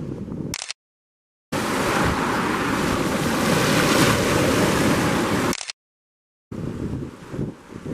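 Sea surf rushing against a shore, a steady noise heard in three separate stretches. It cuts to dead silence twice, for under a second each time, and the middle stretch is the loudest.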